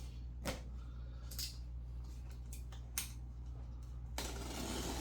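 Light handling of cardboard packaging: a few short clicks and taps, then rustling from about four seconds in, over a steady low hum.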